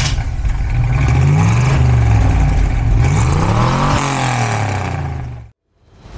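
Stage 2 tuned 1982 DeLorean DMC-12's 2.85-litre PRV V6 revving twice, the second rev climbing higher before falling back, then cutting off suddenly near the end.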